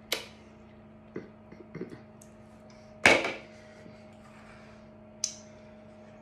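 Kitchen handling noises: a few sharp clicks and knocks, with one loud clank about three seconds in. Under them runs the steady hum of a fan oven heating up.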